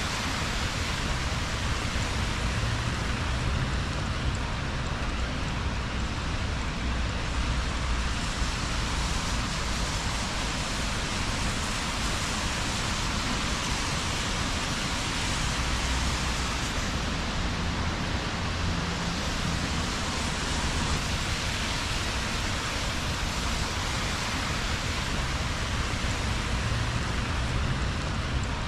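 Steady rain falling on a wet city street, an even hiss with a low rumble underneath.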